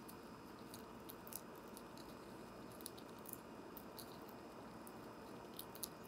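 Fox squirrel chewing and nibbling seeds, picked up close by a microphone on the bird feeder: faint, crisp clicks at irregular intervals over a steady hiss.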